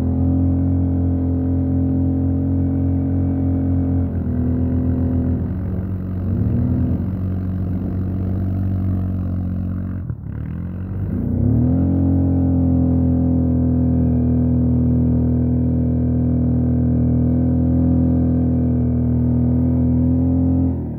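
ATV engine running at a steady throttle, easing off about four seconds in, dropping right off about ten seconds in, then revving back up and holding steady again.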